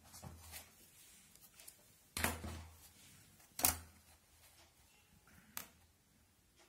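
Clear plastic ruler shifted about on a notebook page by hand: a few knocks and scrapes, the two loudest about two seconds and three and a half seconds in, a lighter one near the end.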